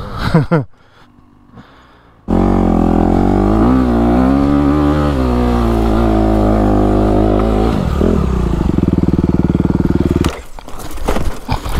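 Honda CRF250RX four-stroke dirt bike revving hard on a steep hill climb. The engine note rises and falls, then holds high revs with the rear wheel spinning, and cuts out suddenly about ten seconds in as the bike goes down. Clattering and scraping of the fallen bike and rider in the dirt follow.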